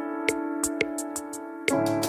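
Background music with a steady held chord and light percussion ticks. A fuller, louder section with a bass line comes in near the end.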